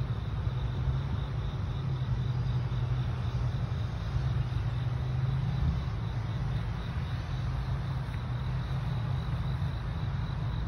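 Wind buffeting the microphone over a steady low rumble from a diesel-hauled Amtrak passenger train still far down the track and approaching.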